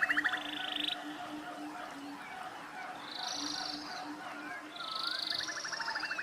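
Forest ambience: birds singing in rapid trills and short chirps, the trill phrases coming back every few seconds. A low, evenly pulsing call runs underneath.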